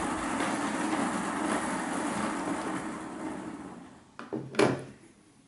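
Model steam locomotive's motor and wheels running on a rolling road at a top speed capped by the DCC decoder's maximum-speed setting, the running noise fading away about four seconds in. A brief burst of noise follows near the end.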